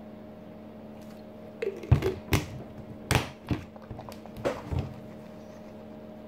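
Plastic Prime drink bottle being handled: a run of sharp knocks and clunks over about three seconds, the loudest about two seconds in, as the bottle is lowered from drinking and set down on a counter.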